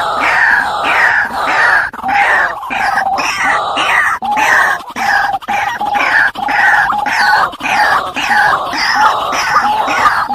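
White-breasted waterhen (dahuk) calling: a loud, monotonous run of harsh notes, each falling in pitch, about two a second without a break.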